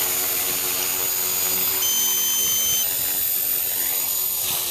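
Align T-Rex 450 Pro electric RC helicopter flying, its motor and rotor whining at a steady pitch; near the end the pitch begins to drop and the sound fades.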